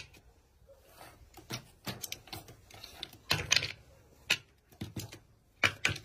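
Irregular light taps and knocks of game pieces being set down and nudged on a wooden tic-tac-toe board, as a raven and a person take turns, with a small cluster of quick taps a little past the middle.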